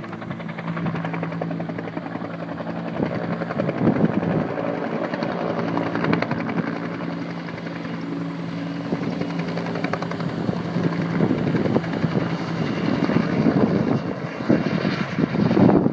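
Firefighting helicopter flying over the hill, its engine and rotor giving a steady drone with a rapid blade chop. The engine tone fades about three-quarters of the way through, leaving rougher, gustier noise near the end.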